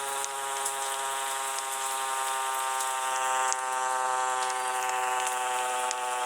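A siren holding one steady buzzing tone, rich in overtones, with no rise or fall in pitch; it gets slightly louder about three and a half seconds in.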